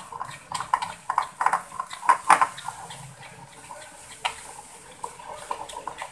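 A spoon beating thick icing-sugar-and-water paste in a glass bowl, clinking against the glass in quick, irregular taps. The taps thin out for a couple of seconds past the middle, then pick up again near the end.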